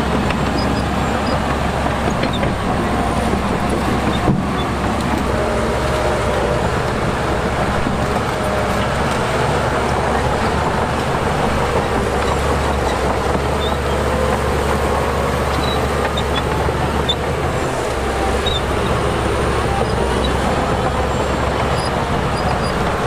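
Diesel engines of heavy earthmoving machinery running steadily under load, with a single sharp knock about four seconds in.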